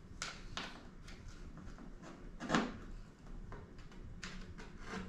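A handful of short hard-plastic clicks and knocks from handling the SwellPro Splash Drone 3+'s body while its landing gear is fitted, with one heavier knock about two and a half seconds in.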